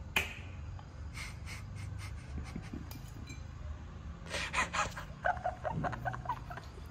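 A man laughing in breathy, panting bursts, loudest from about four to six seconds in. A single sharp click comes just after the start.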